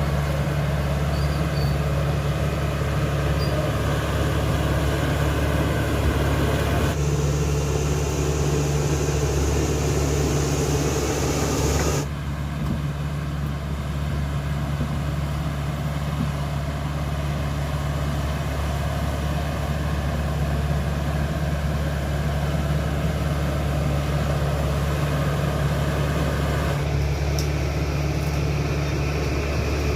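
A CAT D5K XL bulldozer's diesel engine running steadily at constant speed with a deep, even drone. The higher noise over it changes abruptly three times: louder about seven seconds in, dropping away about twelve seconds in, and louder again near the end.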